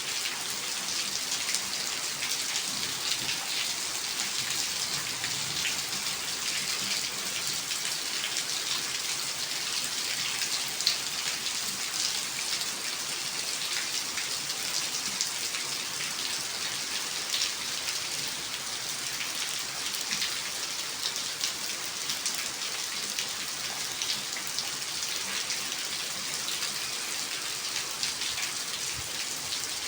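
Steady rain falling, with many separate drops ticking on a surface.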